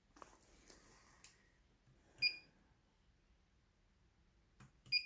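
Turnigy 9XR radio transmitter beeping as its buttons are pressed: two short, high beeps nearly three seconds apart, the second just after a couple of faint button clicks.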